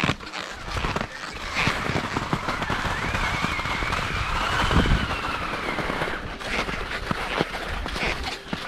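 Skis sliding and crunching on snow, a steady scraping hiss full of small crackles and clicks, with a wavering high squeal for about three seconds in the middle.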